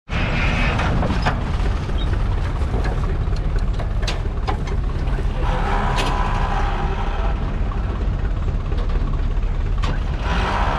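1950 Allis-Chalmers HD5 crawler's two-cylinder, two-stroke GM 2-71 diesel running steadily with a deep, even rumble, with a few sharp clicks over it.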